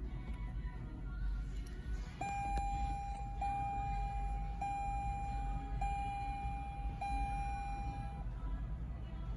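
Lexus LX600 dashboard chime just after the start button is pressed: one steady tone repeated five times in a row, each about a second long, starting about two seconds in. A low steady rumble runs underneath.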